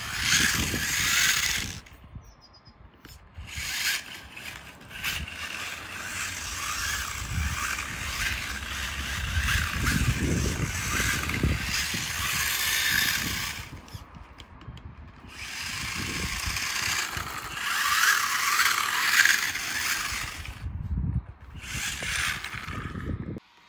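Electric RC car's motor and gear drive whirring in repeated bursts of throttle, its drift tyres spinning on wet asphalt. Later the bursts cut out in places, as the traction control turns the throttle down when the wheels spin.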